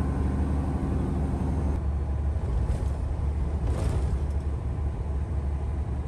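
Steady low rumble of a semi-truck's engine and tyres heard from inside the cab while driving on the highway, with two brief hisses near the middle. Background music stops about two seconds in.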